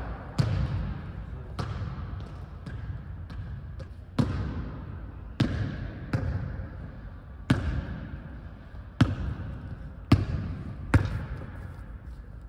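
A basketball bouncing on a hardwood gym court: about nine sharp, irregularly spaced bangs, each trailing a long echo off the hall's hard walls.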